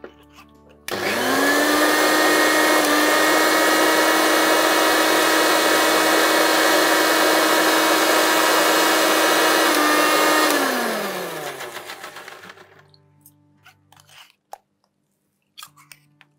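Electric mixer grinder (mixie) grinding green chillies into a paste. The motor starts about a second in and quickly spins up to a steady high whine for about nine seconds, then is switched off and winds down to a stop.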